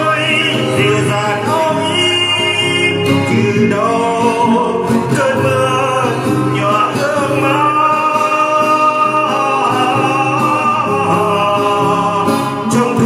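Music: a slow Vietnamese ballad, a voice singing over acoustic guitar accompaniment.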